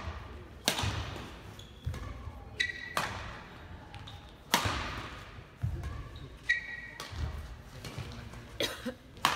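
Badminton rally: sharp racket strikes on the shuttlecock, about one every two seconds, each echoing briefly in a large hall. Shoes squeak on the court floor twice between strikes.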